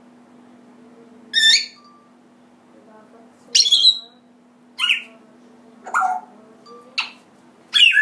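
African grey parrot giving short, loud squawks and whistles, six calls spaced about a second apart, each lasting well under half a second.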